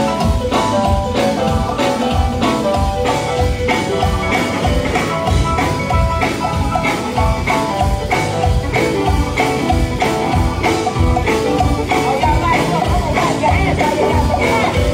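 Live gospel band music with a steady drum beat, deep bass and quick runs of short, bright melodic notes.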